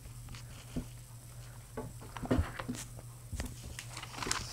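Scattered light clicks and taps of small plastic Lego pieces being handled and searched through, over a steady low hum.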